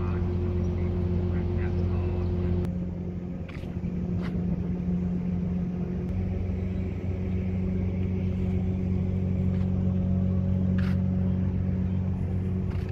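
River car ferry's engine running with a steady low drone, dipping briefly about three seconds in.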